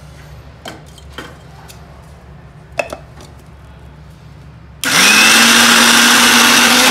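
A few light knocks as soaked urad dal is scooped into a steel mixer-grinder jar and the lid is fitted. About five seconds in, a Morphy Richards mixer grinder switches on and runs loud and steady, grinding the dal to a thick paste, its motor hum edging slightly upward.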